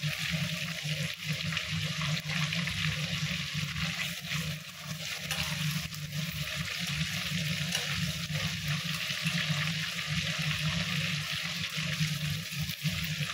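Chicken legs frying in a pan of hot oil: a steady sizzling hiss with a low steady hum underneath.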